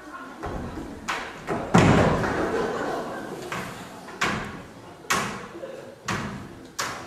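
A series of about seven thuds and knocks on a stage floor as a long ladder is knocked about and a performer falls. The loudest comes about two seconds in.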